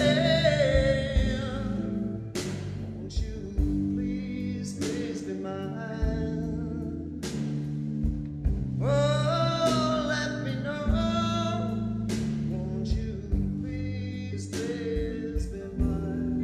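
Live rock band playing: electric guitar, bass guitar and drums, with the drums hitting at a regular beat over held bass notes.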